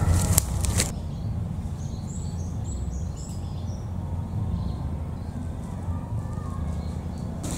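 Footsteps crunching on dry leaf litter for about the first second, then a steady low rumble with a few faint, high bird chirps in the middle.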